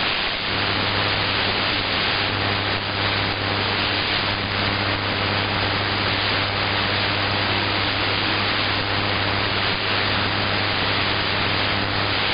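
Steady shortwave hiss and static from an ELAD FDM-S2 software-defined radio in AM mode tuned to KTWR Guam on 9900 kHz, with a low hum underneath. The station's signal is weak, barely above the noise, so no programme audio comes through clearly.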